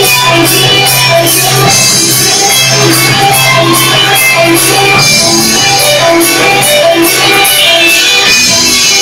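Live rock band playing an instrumental passage, loud: electric guitars picking a repeating figure over a bass line, with drums keeping a steady beat on the cymbals.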